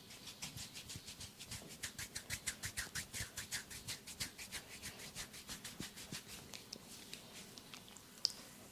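Quick, even rubbing and scratching strokes of a head massage, hands working over hair and scalp about six times a second; the strokes stop about seven seconds in. A single sharp click comes near the end.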